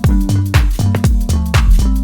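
Electronic dance music with a steady four-on-the-floor kick drum, about two beats a second, and a bass line.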